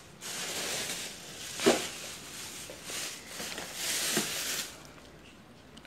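Rustling and handling noise, with one sharper knock about one and a half seconds in; the rustling stops about three quarters of the way through.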